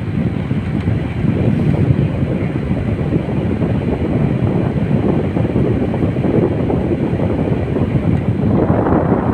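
Vintage National air conditioner running, its fan blowing with a loud, steady rush of air.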